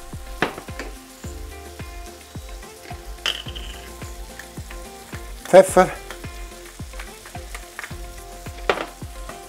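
Button mushrooms and chopped garlic sizzling in butter in a frying pan over lowered heat, with scattered crackling pops.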